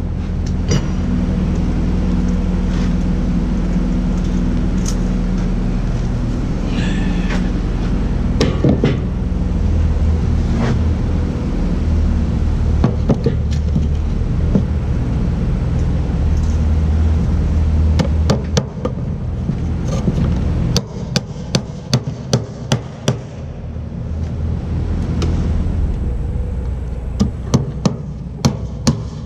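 Hammer blows nailing wooden formwork boards, scattered at first and then in quick runs of strikes, over a steady engine drone that drops away about two-thirds of the way through.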